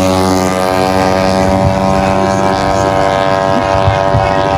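Tuned 155cc automatic scooter engine at full throttle, held at a steady high pitch as the CVT keeps the revs constant during a drag run.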